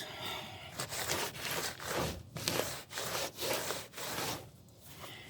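Sandpaper rubbing back and forth on the van's repaired sill panel in rasping strokes, about two a second, stopping shortly before the end.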